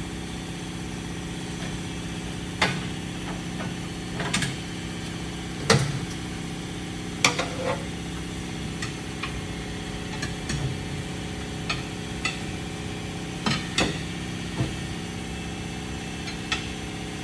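Steady mechanical hum of tyre-shop machinery, broken by a dozen or so sharp metallic knocks and clanks from wheel and tyre work.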